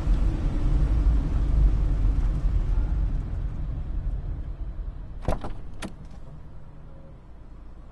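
A low vehicle rumble that starts abruptly and slowly fades away, with two sharp clicks a half second apart about five seconds in.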